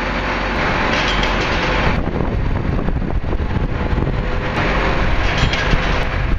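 New Holland BR780 belt-type round baler running off a tractor's 1000 rpm PTO, its pickup, belts and chains clattering steadily over the tractor's engine.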